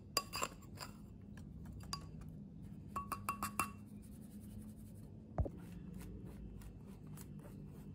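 Metal mesh sieve tapped against a glass mixing bowl while sifting cocoa powder: scattered light clinks, then a quick run of about five ringing taps a few seconds in, and one duller knock a little later.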